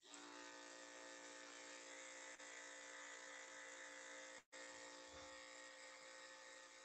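Electric dog grooming clippers running with a steady buzz while trimming a poodle's paw. The buzz breaks off for an instant about halfway through.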